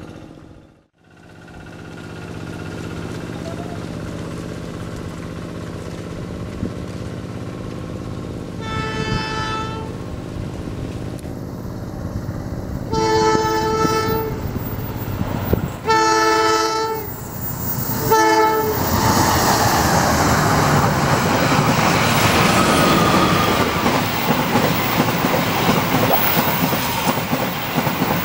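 Diesel locomotive approaching with its engine running and sounding its horn four times: three blasts of about a second each, then a short fourth. After that comes the loud, steady rumble and clatter of a train's wheels on the rails as it passes close by.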